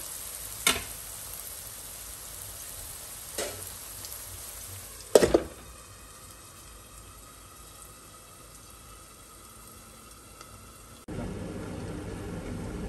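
Diced potatoes sizzling in hot oil in an aluminium kadai, with a couple of light metal clinks and a loud metallic clatter about five seconds in as the aluminium lid is set on the pan. After that the sizzle goes quieter and muffled under the lid, then comes back louder suddenly near the end.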